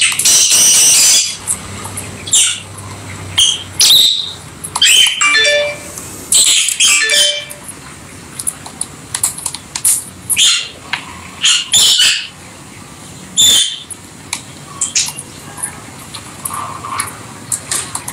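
Rosy-faced (peach-faced) lovebirds calling: short, shrill, high-pitched chirps in irregular bursts, with a dense run of calls in the first second.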